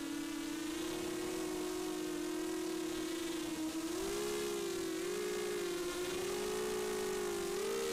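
FPV racing quadcopter's brushless motors and propellers whining in flight, as heard from its own onboard camera. The pitch holds steady at first, then dips and swells with the throttle several times in the second half and rises near the end.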